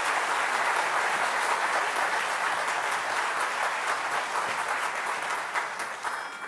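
Audience applauding, the clapping dying away near the end, where a steady high tone begins.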